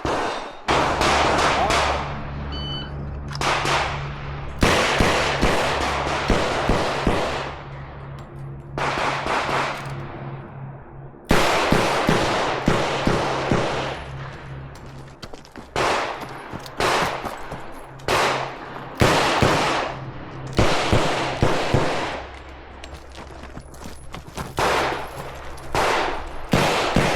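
Revolver shots fired in strings of several rapid shots with short pauses between the strings.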